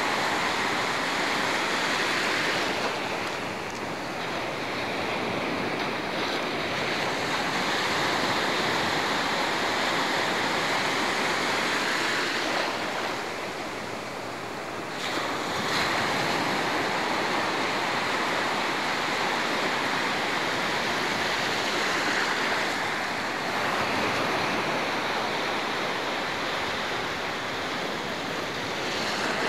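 Gentle sea surf washing in at the water's edge, swelling and easing, with wind noise on the microphone.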